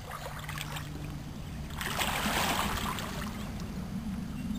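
Wind rumbling on the microphone over small waves washing among shoreline rocks. A louder rush comes about two seconds in and lasts about a second.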